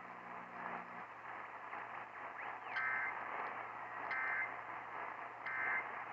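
Weather radio receiving an alert: three short, buzzy data-tone bursts about 1.4 s apart, the SAME digital header that opens a NOAA Weather Radio warning, over faint radio hiss and a low hum. The alert cuts off after the bursts.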